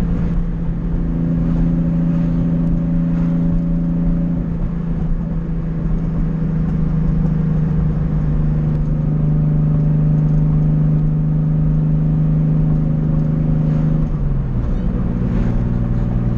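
Turbocharged Datsun 280Z L28 straight-six running through an open 3-inch exhaust, holding a steady engine note while cruising. About fourteen seconds in the pitch drops as the revs come down.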